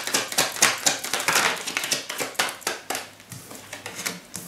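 A deck of tarot cards shuffled by hand: a quick run of papery card flicks for about three seconds, then a few scattered taps as cards are drawn and laid on the table.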